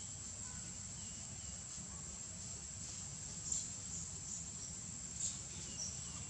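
Steady high-pitched drone of insects, with a few short faint chirps about halfway and near the end over a low rumble.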